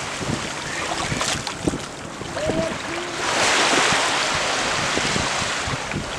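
Surf washing on a rocky shore with wind buffeting the microphone; the wash swells about three seconds in. A few soft clicks and two brief chirps come just before the swell.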